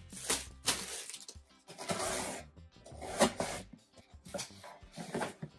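Plastic packaging crinkling and rustling in irregular bursts as wrapped items are handled and put down, with one sharp knock a little after three seconds, then rummaging in a cardboard box.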